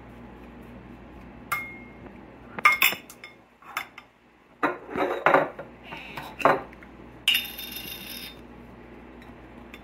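A metal spoon and wooden chopsticks clinking and scraping against a porcelain bowl as thick sauce is scooped in and stirred: a series of separate sharp knocks, the loudest cluster about two and a half seconds in. About seven seconds in comes a brief hissing scrape lasting about a second.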